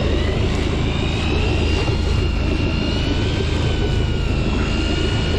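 Motorboat engine running steadily under way: a loud, continuous low drone with a high whine that wavers slightly in pitch.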